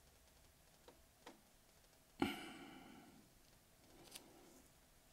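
Near-silent room tone, broken by a couple of faint taps, one short sharp ringing sound about two seconds in that dies away within a second, and a faint soft sound near the end.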